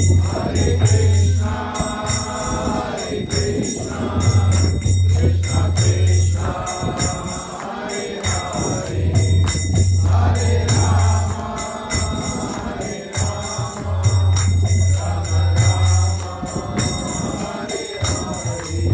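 Devotional group singing (kirtan) with hand cymbals clinking in a steady rhythm, over a low steady tone that comes and goes every couple of seconds.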